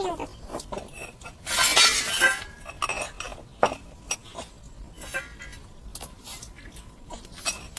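Irregular clinks and knocks of dishes and utensils, with a louder noisy stretch about two seconds in.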